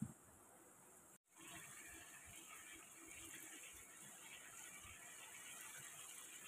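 A brief light clink right at the start as a glass lid is set on the wok. After a sudden break, chicken pieces simmer faintly in their own watery juices, which are starting to cook down.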